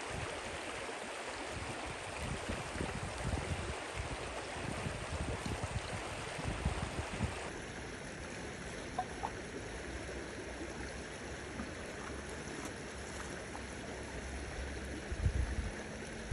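Steady rushing of a flowing stream. The sound changes abruptly about halfway through.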